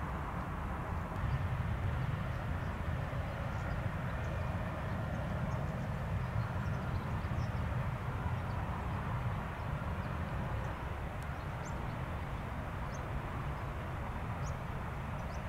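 Outdoor ambience: a steady low rumble that neither rises nor falls, with faint short bird chirps scattered through it.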